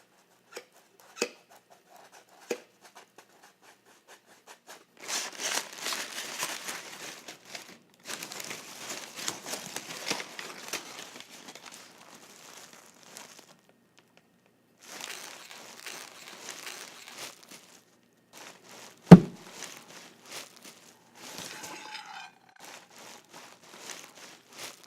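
Crinkling and tearing, as of packing material being handled, in several spells, with one loud single thud about three-quarters of the way through.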